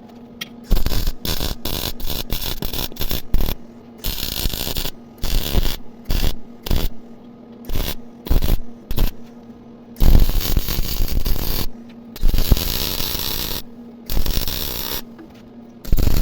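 Electric welding arc in on-off bursts: a quick run of short tack welds in the first four seconds, then longer welds of one to two seconds each, with a steady low hum underneath.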